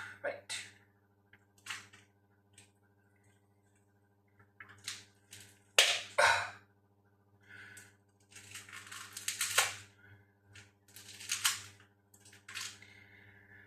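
Unpacking a boxed door closer: irregular crinkling, rustling and cracking of packaging and tape, with clusters of louder crackles about six, nine and eleven seconds in. A steady low hum runs underneath.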